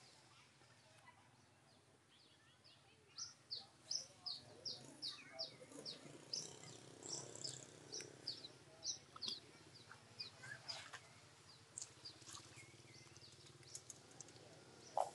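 A bird calling in a quick series of short, high, falling chirps, about two or three a second, thinning out after several seconds. A single brief, lower sound comes at the very end.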